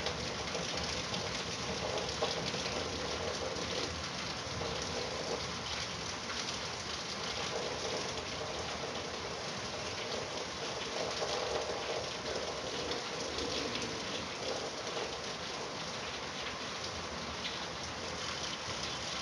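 Steady rain falling and pattering on surfaces, an even hiss with many small drop impacts.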